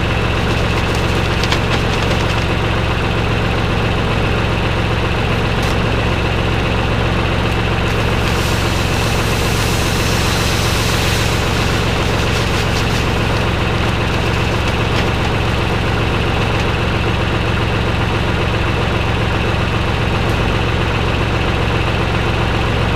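A tractor's diesel engine runs at a steady speed, heard close up, with a steady high whine over it. A hiss swells for a few seconds in the middle.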